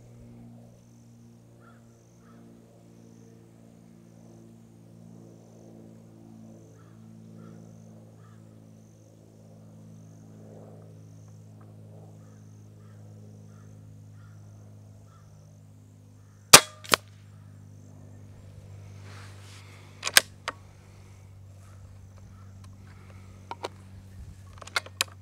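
Hatsan Flash Pup .22 PCP air rifle firing. After a long stretch of only a faint steady low hum, there are two sharp cracks half a second apart, another crack about three seconds later, then a few lighter clicks near the end.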